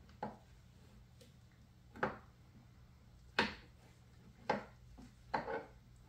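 Five dull knocks about a second apart: a rag-wrapped pry bar levering and bumping against the ATV's metal subframe and exhaust heat shield as the shield is forced into place.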